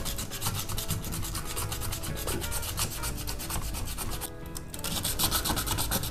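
180-grit sandpaper rubbed back and forth by hand over a metal drawer-slide rail, in a quick run of scratchy strokes with a short pause about four seconds in. The metal is being scuffed so that glue will grip it.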